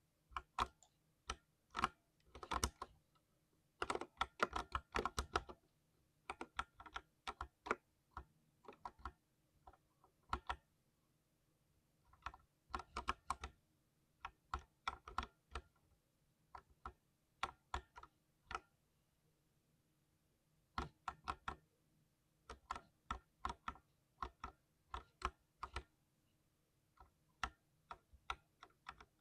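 Typing on a 60% mechanical keyboard: irregular runs of sharp key clicks in quick bursts, with short pauses between them.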